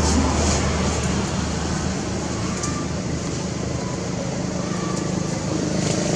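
Steady hum of a running engine under a constant hiss.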